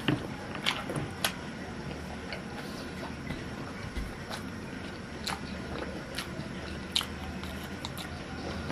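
Close-up eating sounds of roast chicken being bitten and chewed: scattered wet smacks and sharp clicks every second or so over a steady low hum.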